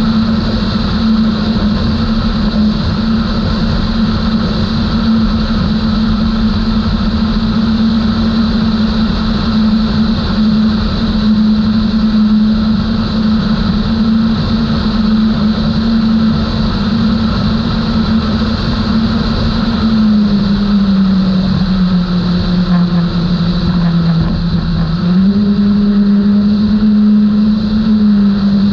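Outboard engines of a Skater 32 powerboat running at high speed, a steady drone over a rush of noise. The engine pitch sags around twenty seconds in, then climbs back a few seconds later.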